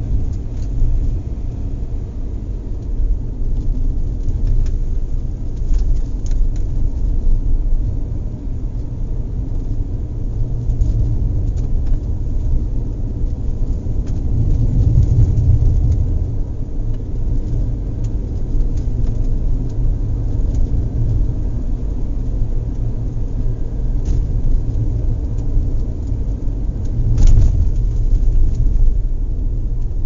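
Steady low rumble, with a few faint clicks or knocks scattered through it, the clearest one near the end.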